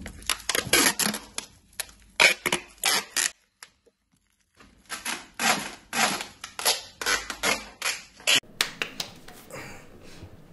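Brown packing tape being pulled off the roll in quick, rasping ripping pulls as it is wound around a person's wrists. The pulls stop for about a second a third of the way in, resume, and end about eight seconds in.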